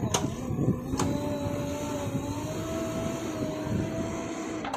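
JCB backhoe loader's diesel engine running steadily, its pitch drifting slightly, with two sharp metallic clanks in the first second. The sound cuts off suddenly near the end.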